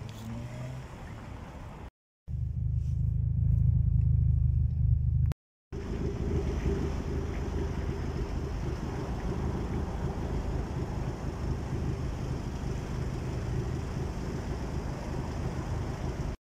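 City street ambience: steady traffic noise from passing cars, with a louder low rumble in the second stretch. The sound drops out briefly twice where short clips are cut together.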